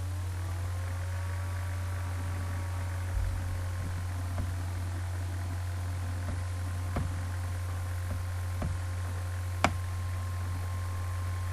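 Steady low electrical hum, with faint sustained tones that glide in near the start and a few faint clicks, the sharpest near the end.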